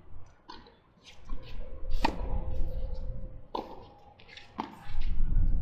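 Tennis ball struck back and forth by rackets in a doubles rally: sharp pops roughly every second and a half, the loudest about two seconds in. A low rumble comes up near the end.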